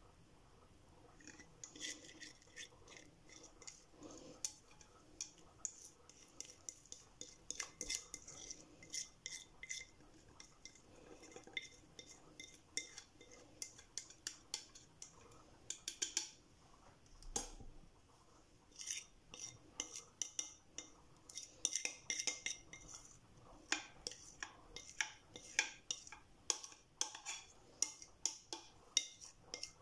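Spoon scraping thick chocolate cake batter out of a mixing bowl into a glass baking dish: irregular light scrapes and clinks, starting about a second and a half in and growing busier in the second half.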